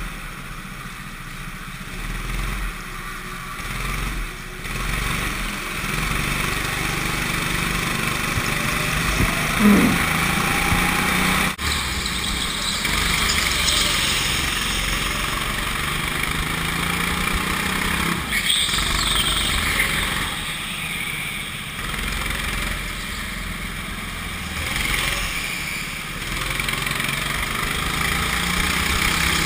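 Go-kart engine running at speed, heard close up from a camera mounted on the kart. Its pitch falls and rises a few times, and there is a single sharp click about halfway through.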